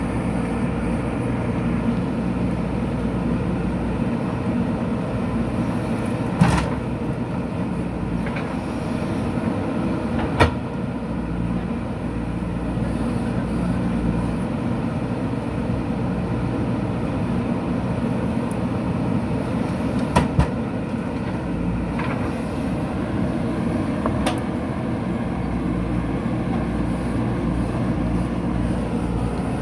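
JCB 3DX backhoe loader's diesel engine running steadily while digging soil, with several sharp metallic clanks from the bucket and arm, two of them in quick succession about two-thirds of the way through.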